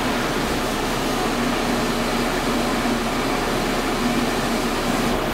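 Shelled corn pouring steadily out of an overhead holding bin's gate into a semi's grain trailer, an even rushing hiss that doesn't let up.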